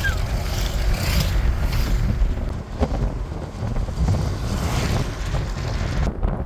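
Wind buffeting the microphone and road rumble from an open-top convertible driving at road speed.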